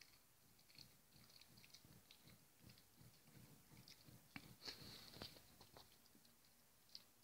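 A Shih Tzu chewing a tough meat-and-leather-core treat: faint, irregular crunching and gnawing clicks, busiest a little past the middle. The dog can't bite through the treat, which the owner wonders is down to bad teeth.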